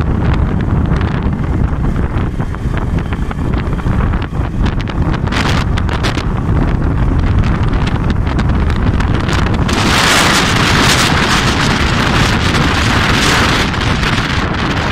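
Strong storm wind buffeting the microphone on a moving motorcycle, a heavy rumbling rush. About ten seconds in, a loud hiss sets in on top of it.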